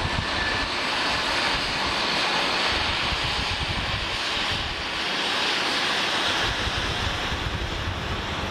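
Jet airliner's engines producing a loud, steady rushing roar, with a faint high whine fading out within the first second. Gusts of wind buffet the microphone underneath.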